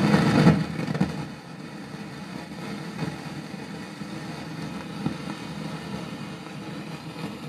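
Left channel of an Auna CD-708 integrated amplifier putting out a loud random noise through its speaker with no music playing, loudest for about the first second and then settling into a steady, rough noise with a few small pops. The noise is a fault in the main amplifier stage, built from D1875 copies of LM1875 chips, which the owner suspects is not as stable as it should be.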